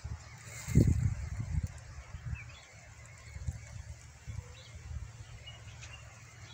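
Wind buffeting the microphone in uneven low gusts, strongest about a second in, with a few faint bird chirps.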